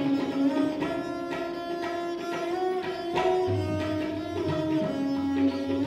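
Indian classical instrumental music: a string instrument plays a melody of held notes that slide between pitches, over low tabla strokes.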